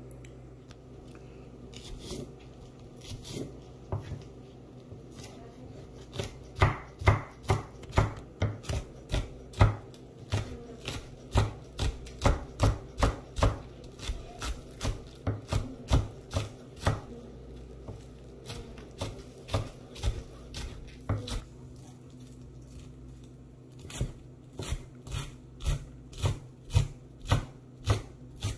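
Large kitchen knife chopping spring onions and leafy herbs on a thick round wooden chopping block: runs of sharp knocks about two or three a second. There are a few scattered strikes at first, a long fast run after about six seconds, a slower stretch in the middle, and another fast run near the end.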